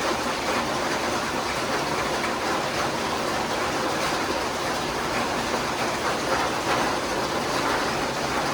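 Steady rain pattering, an even hiss with no thunder.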